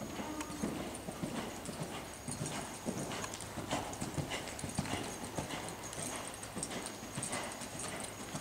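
Hoofbeats of a ridden horse trotting on arena dirt: an even run of several beats a second.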